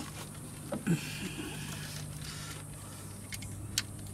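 Faint clicks and rustles of a hand working plastic wiring-harness connectors and wires in an engine bay, over a steady low hum.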